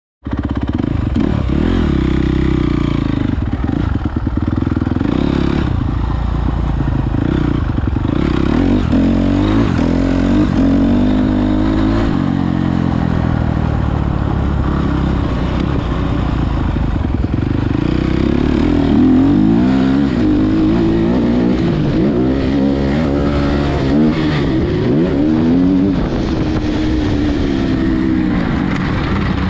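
Motocross dirt bike engine revving up and falling back again and again as it is ridden around a track, heard close up with clattering from the bike.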